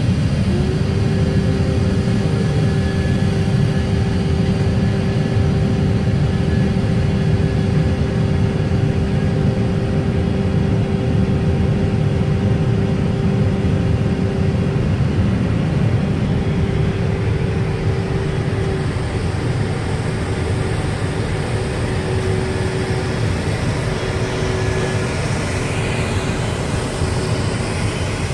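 Steady jet aircraft noise on the ground: a low rumble with a steady whine over it, heard from inside an airliner cockpit. The whine comes in about half a second in and fades out a few seconds before the end.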